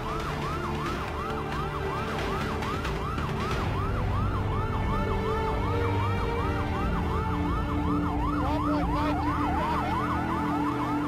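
Police car siren in a rapid yelp: quick rising sweeps, about three a second, with a low steady drone underneath.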